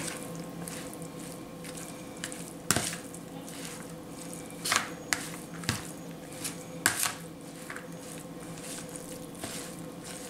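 Metal spoon stirring and scraping a mixture of minced fish and green onion in a plastic bowl: soft wet squishing with irregular sharp clicks where the spoon knocks the bowl.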